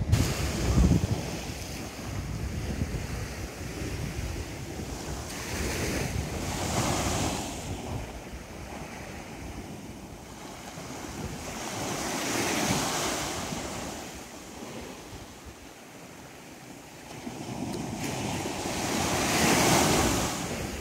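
Small sea waves washing up on a sandy beach, swelling into a hissing surge roughly every six or seven seconds, with wind rumbling on the microphone throughout.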